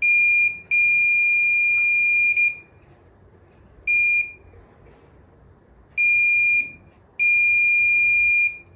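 Electronic buzzer of a home-made touchless doorbell sounding a steady high tone in five separate beeps of uneven length: three short ones and two of over a second. It sounds whenever its light sensor (LDR) is shaded.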